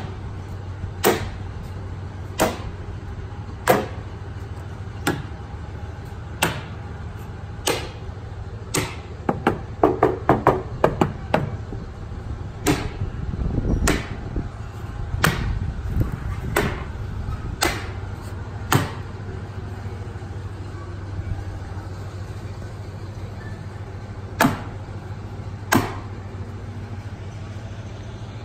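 A small block magnet clicking onto the steel body panels of a 1957 Chevrolet Bel Air wagon, set down and pulled off over and over: sharp clicks about every second and a half, with a quick flurry of them around ten seconds in and only a couple near the end. Each snap is the magnet grabbing steel under the paint, a test for body filler.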